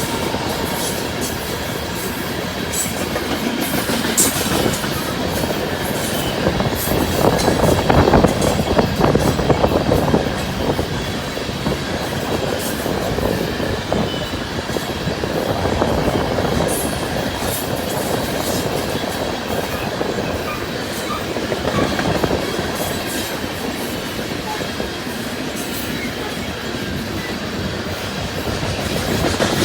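Loaded coal train rolling past: a steady noise of steel wheels on rail that swells and eases, with scattered sharp clicks.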